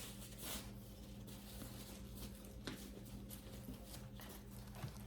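Faint rustling and a few light taps of a leather handbag being handled, over a steady low electrical hum.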